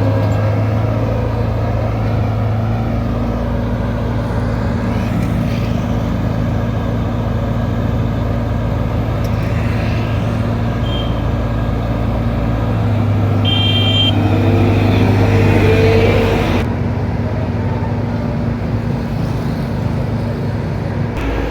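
Engines of heavy road-construction machinery running steadily with a low hum, with a brief high-pitched tone about two-thirds of the way through.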